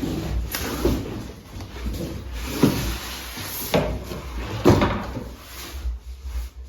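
Cardboard packaging being forced open by hand, rustling and scraping, with about four sharp knocks and scrapes.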